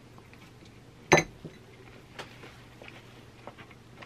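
Wooden chopsticks clicking and tapping against plastic sushi trays and containers, with one sharp knock about a second in and a few faint clicks after it.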